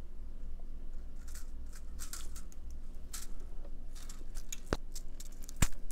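Small handling noises of picking a surface-mount capacitor out of the parts stock with tweezers: soft scratchy rustles, then two sharp clicks near the end, the second one the loudest. A low steady hum runs underneath.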